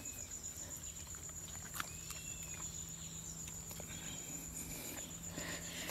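Quiet outdoor ambience dominated by a steady, high-pitched insect drone, with a few faint clicks.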